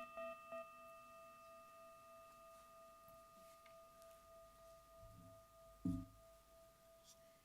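Tibetan singing bowl ringing on after a strike, one steady pure tone with a few fainter higher overtones, slowly fading. A short low thump comes about six seconds in.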